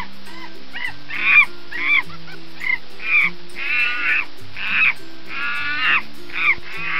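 Monkey calling over and over in short, pitched cries, about two a second, over quiet background music.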